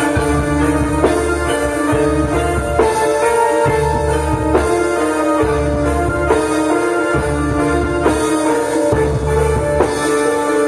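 Javanese gamelan ensemble playing: bronze metallophones strike steady, ringing pitched notes over drums, with deep low beats coming and going.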